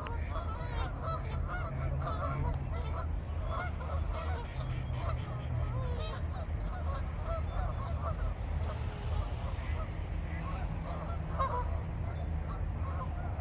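A flock of waterfowl calling, with many short overlapping calls from several birds at once, over a steady low rumble.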